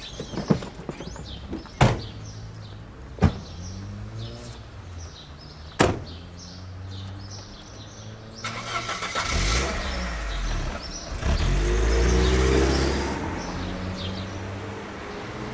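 A car setting off and driving away, its engine rising in pitch as it accelerates and growing louder from about eight and a half seconds in. There are a few sharp knocks in the first six seconds, and birds chirp in the background.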